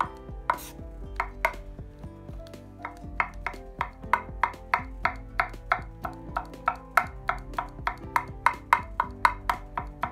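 Chef's knife chopping hard-boiled eggs on a wooden cutting board: quick, even taps of the blade striking the board, about three to four a second.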